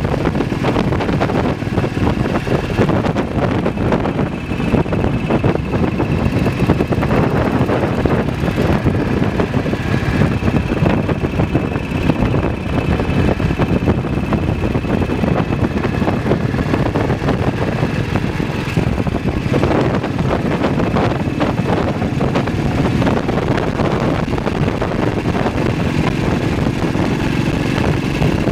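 BSA WM20's single-cylinder side-valve engine running steadily at road speed.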